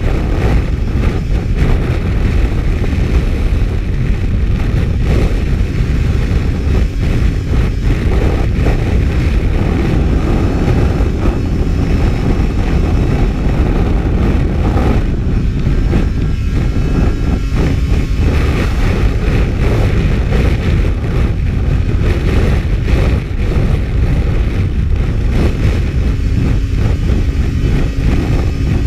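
Racing snowmobile running steadily at speed on lake ice, heard from an onboard camera: a loud, continuous engine drone mixed with heavy wind rush.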